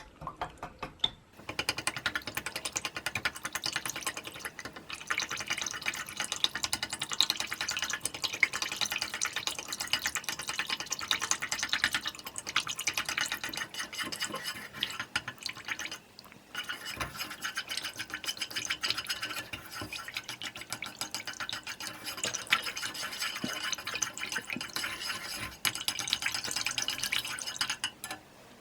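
A utensil stirring a warm beeswax and mineral oil mixture, scraping and clicking rapidly against the container as the wax dissolves, with a brief pause about two thirds of the way through.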